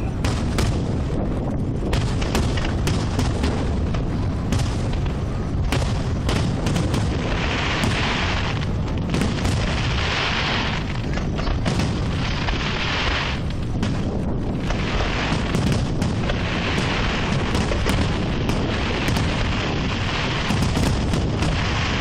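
Aerial fireworks shells bursting in quick succession: many sharp booms over a continuous rumble. Several spells of crackling from the glittering star effects come and go throughout.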